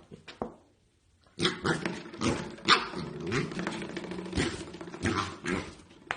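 A dog barking in short bursts mixed with growly, whining vocal noises, starting after a brief near-silent pause about a second in.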